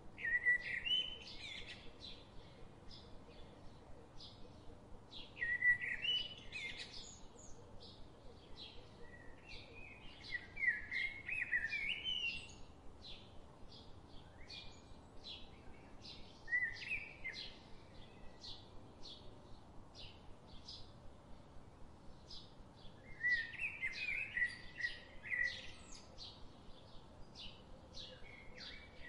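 Birdsong: a songbird sings short warbling phrases every few seconds, with short high chirps ticking steadily in between.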